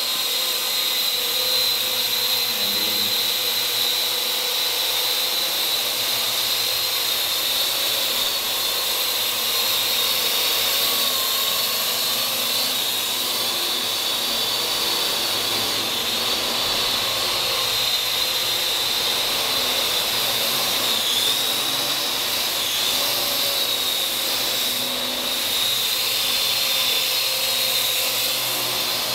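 Parrot AR.Drone quadcopter in flight: its four electric motors and propellers make a steady high whine that wavers a little in pitch as it hovers and moves about.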